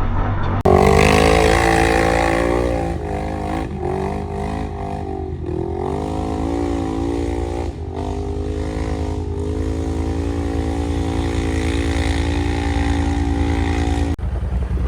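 Off-road vehicle engine running and revving, its pitch rising and falling with the throttle. It starts abruptly about half a second in and stops abruptly near the end.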